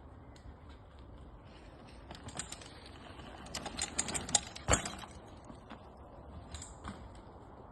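2004 Giant XTC SE hardtail mountain bike being ridden over rough ground, its chain and parts rattling and clicking, with a sharp knock about four and a half seconds in.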